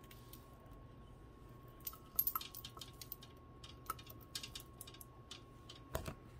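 Quiet, scattered light clicks and clinks of costume jewelry, beads and a metal clasp, being handled while a piece is hooked onto a display, with a somewhat sharper knock near the end. A faint steady high whine runs underneath.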